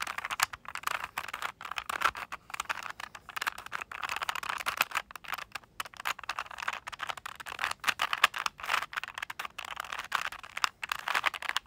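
Rubik's Cube being twisted by hand: a steady run of quick, irregular plastic clicks and clacks as the layers turn.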